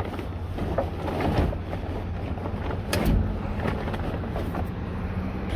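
Synthetic fabric cover rustling and crinkling in short irregular crackles, over a steady low rumble of wind on the microphone.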